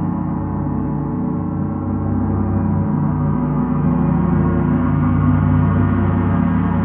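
Gong resonating in a sustained drone of many steady overtones, swelling a little louder about two seconds in.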